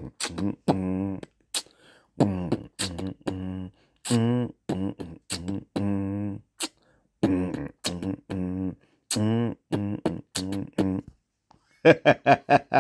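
A man beatboxing and scatting a beat with his voice: short pitched syllables in rhythm, then a quick run of about five sharp beats near the end.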